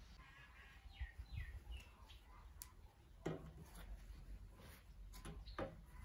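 Faint bird chirps, a few quick downward-sliding calls in the first couple of seconds. Light knocks and clicks come from a steel flat bar being handled and set down on a steel lathe bed, the clearest knock about three seconds in.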